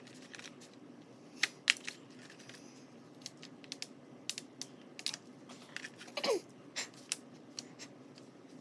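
Scattered light clicks and taps of metallic oil pastel sticks being handled in their plastic tray and worked onto paper, with a short falling squeak about six seconds in.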